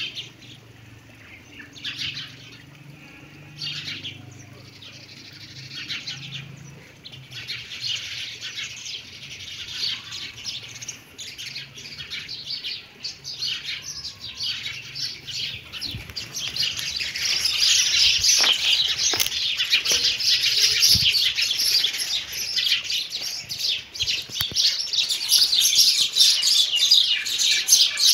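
Many small birds chirping, the chirps growing denser and louder about halfway through.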